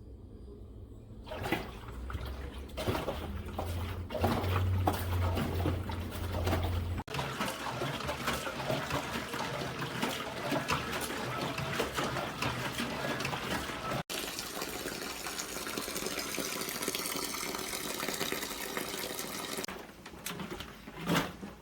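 Water running and splashing, in several stretches that cut off abruptly, with a low hum under the first part.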